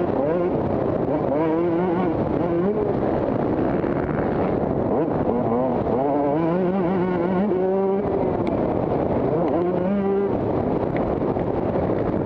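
Several motocross dirt bike engines running hard, their pitch climbing and dropping again and again as the riders work the throttle and shift gears.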